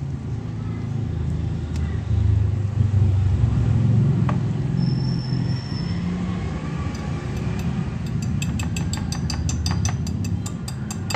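A wire whisk stirring flour and liquid into a stiff dough in a glass bowl, over a steady low rumble. From about eight seconds in, the whisk clicks rapidly against the glass, about five or six times a second.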